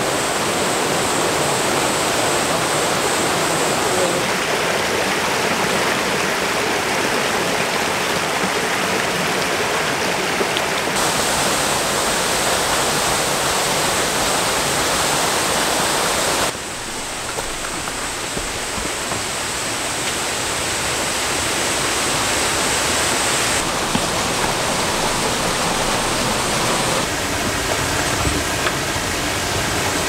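Mountain valley stream rushing over rocks: a steady, dense water noise that jumps in tone and level several times.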